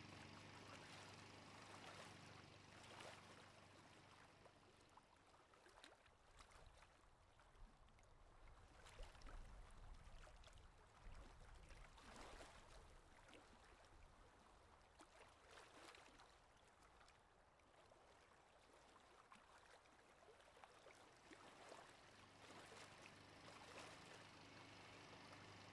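Very quiet water sloshing and trickling around a small boat, with a few soft clicks. A low steady hum is there for the first few seconds and comes back near the end.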